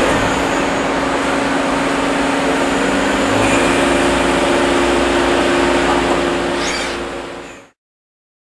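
Citizen A32VII Swiss-type CNC lathe turning a brass part: a steady machine hum with several steady tones under the hiss of coolant and cutting. It fades slightly and then cuts off abruptly about three-quarters of the way through, leaving silence.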